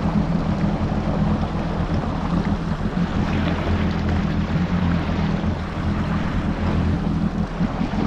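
Yamaha GP1800R SVHO jet ski's supercharged four-cylinder engine running at a steady low speed, with water rushing along the hull.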